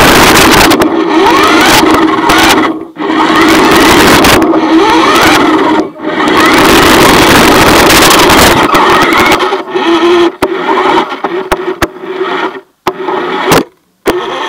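RC car's small electric motor and gears whining loudly over a noisy rattle, the pitch sweeping up again and again as it speeds up, picked up by the iPod riding on the car. The sound turns choppy near the end and cuts out briefly twice.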